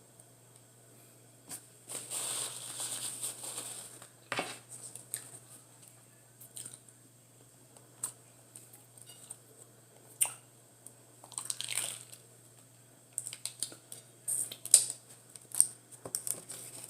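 Close-miked eating of McDonald's fast food: chewing and crunching, with paper and plastic packaging crinkling and tearing. A longer rustle about two seconds in and another near the middle, then a run of small crackles and clicks near the end.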